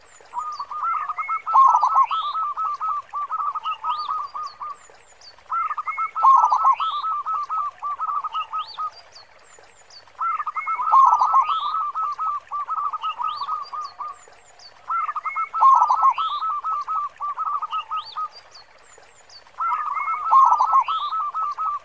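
Zebra dove (perkutut) singing its full song: a run of rapid staccato coos, repeated five times at about five-second intervals. Fainter, higher chirps from other birds come in between the phrases.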